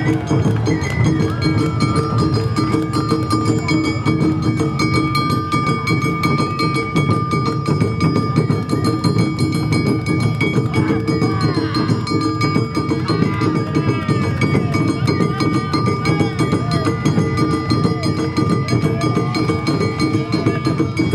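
Live Awa-odori festival music from a marching narimono band: taiko drums and other percussion keep up a dense, steady dance rhythm, with a few long held melodic notes above it.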